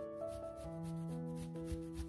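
Raw pumpkin grated on a stainless-steel box grater: quick, repeated rasping strokes. Soft background music plays over it and is the louder sound.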